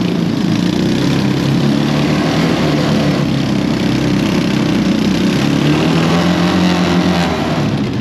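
Small gasoline engine of a kid-sized mini Jeep running steadily as it drives across grass, easing off a little near the end.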